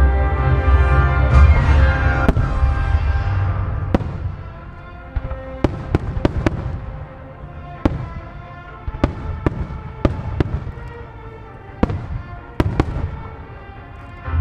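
Fireworks bursting with sharp bangs, some single and some in quick runs of three or four, over music with a heavy bass; the music drops in level about four seconds in, leaving the bangs the loudest thing.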